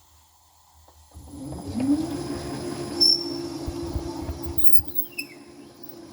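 A machine tool's motor starts about a second in, its hum rising in pitch and then holding steady while it drives a cutter through a valve guide in an Oldsmobile V8 cylinder head. There is some rattling from the cut, a few sharp ticks and a brief high squeal near the end.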